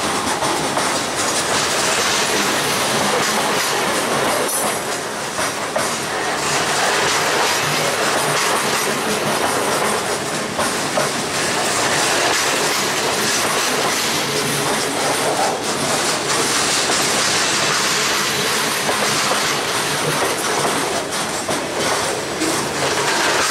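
A freight train rolling steadily along the track, with the rumble and irregular clacking of steel wheels over rail joints.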